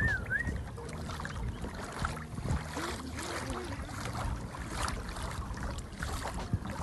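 Lake water lapping and splashing against a kayak's hull, with a steady low rumble of wind on the microphone. A short warbling whistle sounds right at the start.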